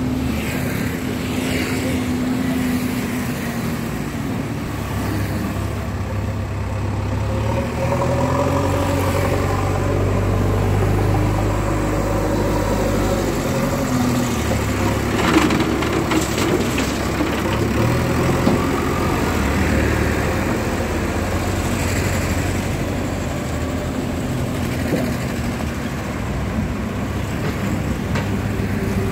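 JCB backhoe loader's diesel engine running as it works the front loader bucket, its engine speed rising and falling several times under load, with a sharp knock about fifteen seconds in.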